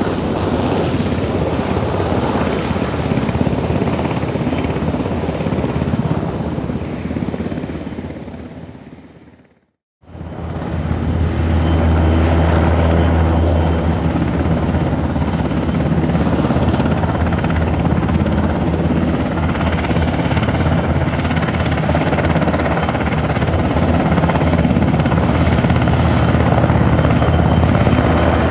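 Military helicopter running steadily, with a high steady whine over the rotor noise. It fades out to silence about nine seconds in, then a second helicopter recording comes in within a second, with a stronger low rumble.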